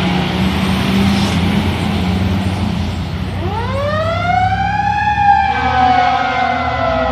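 Fire apparatus responding with its siren: over a steady engine rumble, the siren winds up from a low to a high pitch over about two seconds midway through, then slowly falls.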